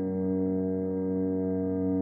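Maltese–Shih Tzu mix dog howling, slowed to slow motion so the howl becomes a deep, steady, drawn-out tone like a beast's.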